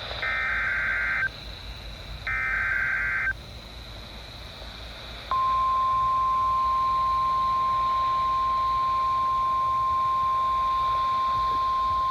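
Emergency Alert System activation over NOAA Weather Radio. Two SAME header data bursts, each about a second long, sound as a rapid two-pitch warbling screech with short gaps between them. About five seconds in, the 1050 Hz warning alarm tone starts and holds as one steady, loud, high tone; it signals a warning, here a severe thunderstorm warning.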